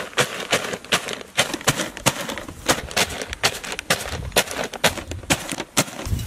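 Corn flakes being crushed inside their plastic packet by pounding with a wooden stick: irregular sharp crackling crunches, several a second.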